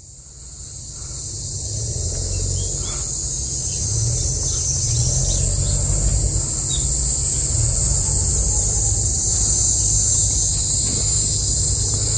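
A chorus of cicadas singing, a dense, steady, high-pitched buzz that fades in over the first two seconds and then holds. A low rumble runs underneath.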